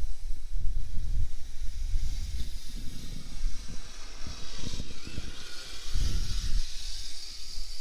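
Kyosho Blizzard RC snowcat's small electric motor and tracks whining as it drives through deep snow, the whine swelling in the second half, over uneven low rumbling from wind on the microphone.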